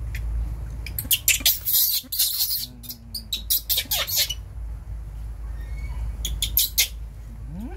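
Baby macaque giving high-pitched squeals in short bursts, three clusters of them, about a second in, near the middle and near the end.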